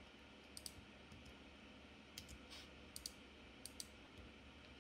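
About eight faint clicks at a computer, some in quick pairs, over quiet room tone: mouse and keyboard clicks while a menu is opened and browsed.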